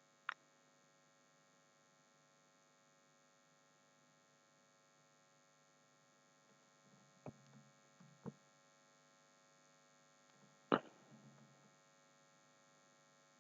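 Near silence with a faint steady electrical hum, broken by a few isolated short clicks, the loudest about eleven seconds in.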